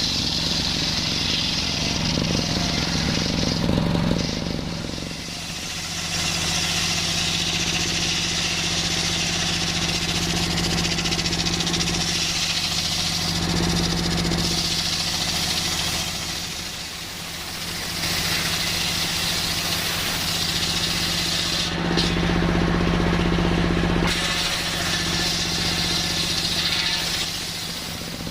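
Circular sawmill running and cutting coconut-palm timber: a steady machine drone under the high rasp of the blade in the wood, with brief lulls between cuts.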